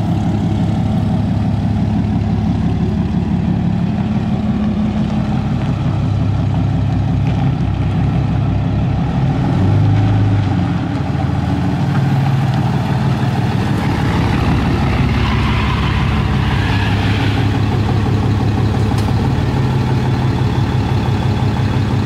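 Cummins diesel engine idling steadily, with a brief swell in its note about ten seconds in followed by a short dip.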